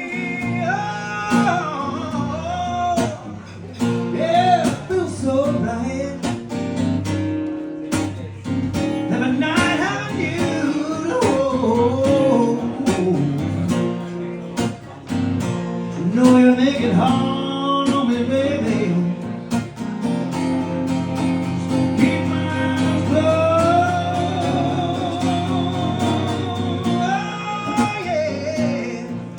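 Live acoustic guitar strumming under a male voice singing a melody with vibrato.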